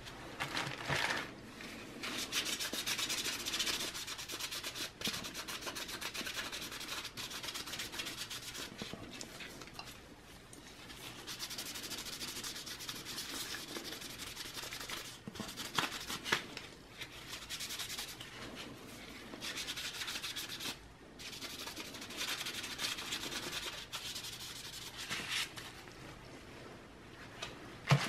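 Paper napkin wetted with rubbing alcohol rubbing over the copper contact plates of a laptop heatsink, wiping off old thermal compound residue. The scrubbing comes in spells with short pauses.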